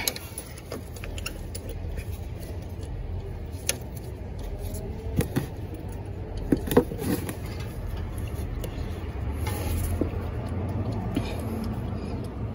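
Wrench and socket extension working on a truck's A/C compressor mounting bolt: scattered metallic clicks and knocks, the loudest a few about five to seven seconds in, over a steady low rumble.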